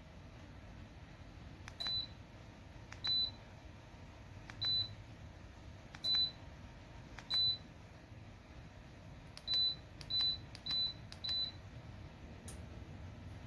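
Electric ceramic space heater's controls beeping as buttons are pressed: nine short, high beeps, each with a click. The first five come about a second and a half apart, and the last four come quicker, less than a second apart.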